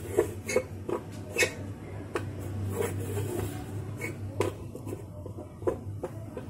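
Hand pressing and patting parotta dough flat on a steel plate: irregular soft slaps and small knocks of the plate, over a steady low hum.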